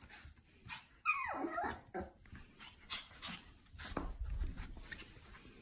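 Pomeranian puppy giving one high, falling whine about a second in, amid short clicks and scuffles, in excitement at greeting its owner coming home.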